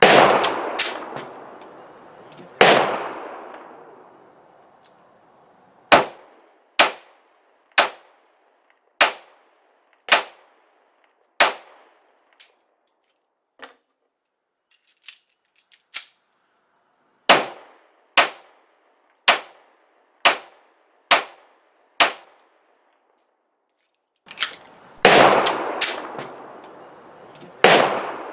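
Ruger LC9 9mm pistol firing: two strings of single shots at about one a second, six and then seven. Near the start and again near the end come closer, louder shots with a long echo.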